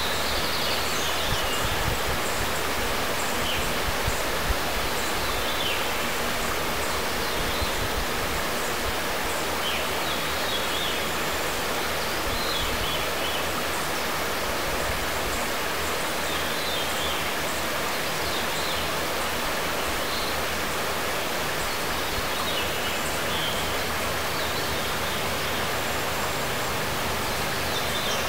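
Steady rush of stream water flowing over stones, with a small bird giving short, high chirps every few seconds.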